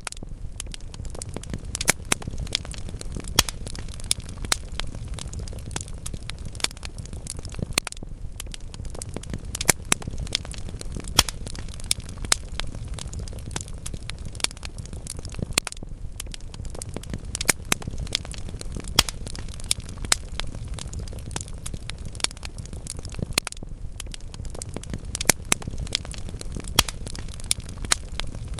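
Logs burning in a fireplace: a steady low rumble of flames with frequent sharp crackles and pops at irregular intervals.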